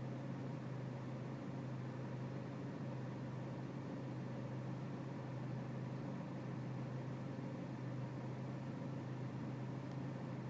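BMW E46 320Cd's four-cylinder diesel engine idling cold with a steady hum; its idle is rough, which the owner looks into through the air-mass readings.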